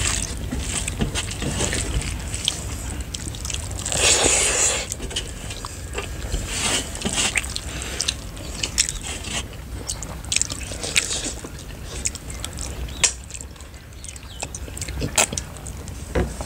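Eating by hand from metal plates: fingers mixing and scraping rice and curry on brass and steel, with chewing and many small clicks, and a louder wet sound about four seconds in.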